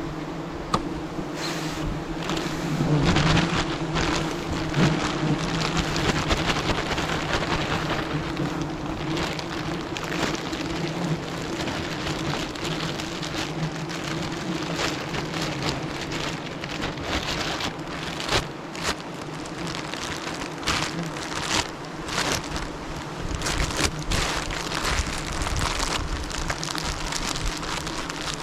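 A swarm of wild bees buzzing in a steady low hum, with irregular crackling and rustling sounds over it.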